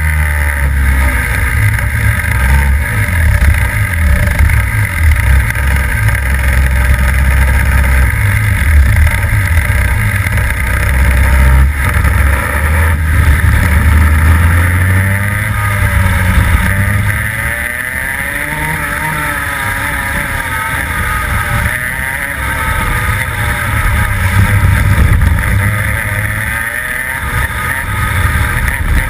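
Rotax 125cc two-stroke kart engine running at racing speed on track, its note rising and falling as the kart brakes and accelerates through the corners, with a quieter, lower stretch in the second half before it picks up again.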